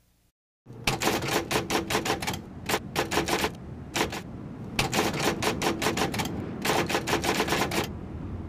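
Bursts of rapid typing key clicks, about ten strokes a second, with short pauses between the runs.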